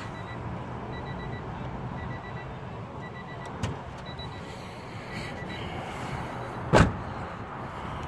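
1994 Honda Civic's warning chime beeping about once a second over a steady low hum, with a sharp click about three and a half seconds in and a loud thump near the end.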